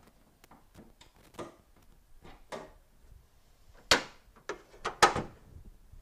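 Newly replaced car hood latch releasing and the steel hood being lifted open. Faint clicks and rattles come first, then two sharp metallic clunks about four and five seconds in, with smaller clicks between.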